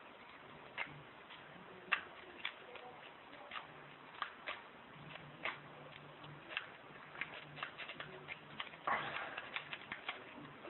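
Faint, irregular clicks of a sawtooth rake being worked in and out of a six-pin pin-tumbler padlock against a tension wrench, the pins clicking as they are raked, with a short scratchy stretch near the end.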